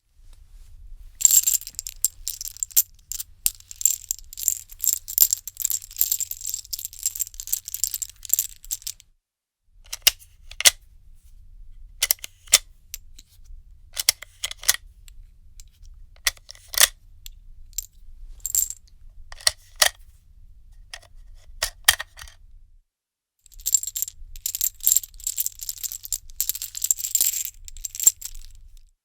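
Loose metal bullet cartridges being handled, clinking and rattling against one another. A dense run of clinks lasts about eight seconds, then comes a stretch of scattered single clinks, then another dense run near the end.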